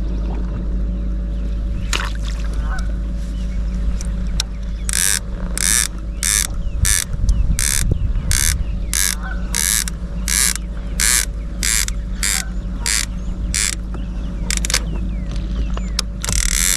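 Steady low hum of the kayak's motor. About four seconds in, a series of about sixteen short, harsh sounds starts, evenly spaced at about one and a half a second, and runs until near the end.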